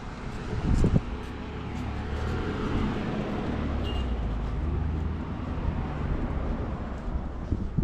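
A road vehicle passing, its low engine and tyre rumble swelling and then easing off, with a short thump just before a second in.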